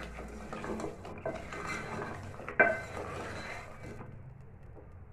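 Wooden spoon stirring crab pieces through thick masala gravy in a metal pot, scraping and clinking against the pot, with one sharp knock about two and a half seconds in. The stirring dies down near the end.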